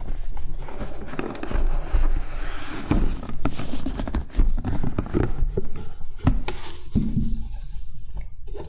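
Cardboard board-game box being handled: the lid scraping and rustling as it is slid up off the base, with a series of sharp knocks and taps of cardboard against the tabletop.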